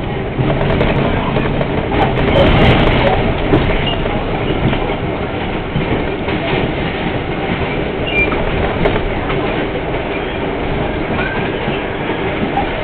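R42 subway train running on elevated track, heard from inside the front car: a steady rush of wheels on rail, louder for a moment about two seconds in. A couple of brief high wheel squeaks come through later on.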